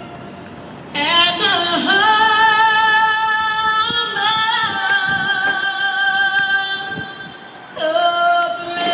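Slow singing, with long held notes that slide gently from one pitch to the next and a short break about seven seconds in.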